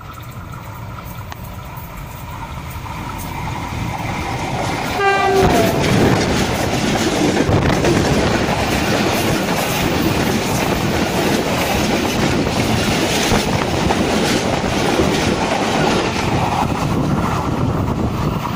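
Passenger train hauled by a diesel locomotive approaching and passing close by, growing louder over the first five seconds. About five seconds in, a short horn blast drops in pitch as the locomotive goes past. The coaches then roll by with a steady clatter of wheels over the rail joints.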